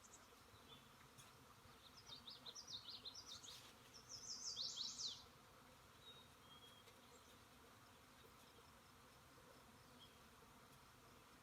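Faint steady buzzing of a honeybee swarm. A bird sings over it twice, each time a quick series of high, falling notes: about two seconds in, and again about four seconds in.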